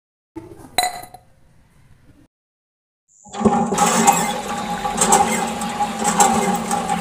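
A short clink, then about three seconds in a miniature water pump's small motor starts and runs steadily with water gushing.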